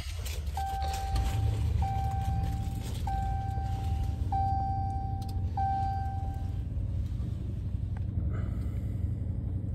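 2018 Ram 2500 Power Wagon's 6.4-litre HEMI V8 just started and running at a steady idle, heard from the driver's seat. A dashboard chime sounds five times in a row, about once a second.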